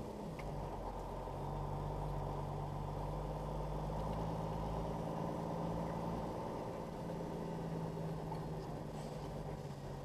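Semi-truck diesel engine running steadily at low revs while the truck rolls slowly, heard from inside the cab; its note drops a little just after the start and then holds.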